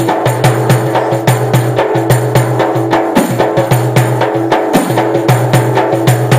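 Tambourine with metal jingles struck by hand, beating a quick, steady rhythm of several strokes a second over sustained low pitched notes from accompanying music.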